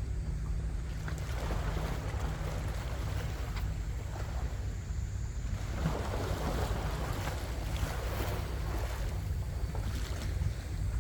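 Wind buffeting the microphone in a steady low rumble, with waves washing in twice, swelling and fading.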